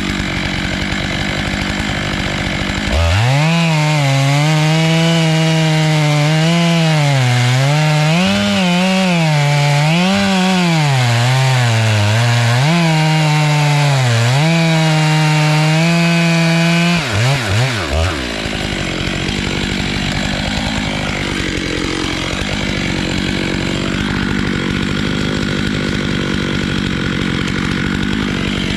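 Stihl MS 881 two-stroke chainsaw with a 36-inch bar on an Alaskan mill, sawing black walnut. A dense, noisy cutting sound gives way about three seconds in to a clear engine note that rises and falls over and over as the saw's speed changes under load. Around the middle the revs drop quickly a few times, and a rougher, noisier sawing sound follows.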